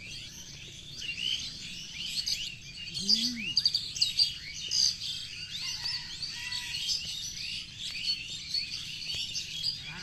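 Many small birds chirping and calling at once, in quick overlapping notes throughout. About three seconds in there is one brief low call that rises and falls.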